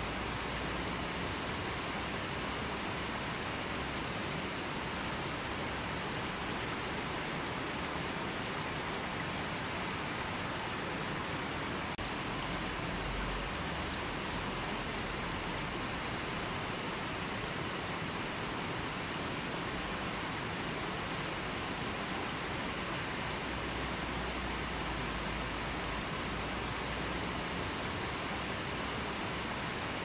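Fast-flowing river rushing over boulders and shallow rapids: a steady, even rush of water that never lets up.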